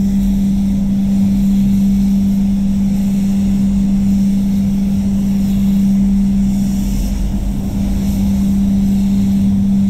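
Spray booth fans running with a steady loud hum, while a gravity-fed HVLP spray gun hisses as it lays a dry effects coat of metallic basecoat, the hiss a little stronger about two-thirds of the way through.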